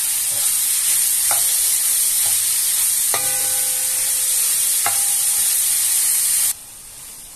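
Ground beef frying and sizzling in a pan while a wooden spoon stirs it, knocking against the pan a few times. The sizzling cuts off suddenly about a second before the end.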